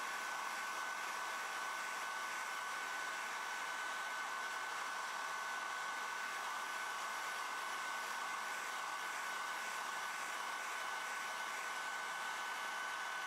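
Hair dryer running steadily: an even rush of blown air with a steady high whine on top. It is warming freshly applied grip tape to raise the adhesive's hold.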